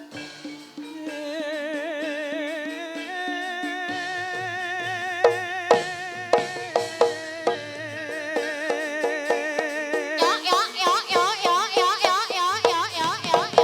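Javanese jaranan dance accompaniment music. A melody of wavering held notes rises step by step, drum strokes come in about five seconds in, and from about ten seconds in a louder, high wavering melody plays over quick, even drumming.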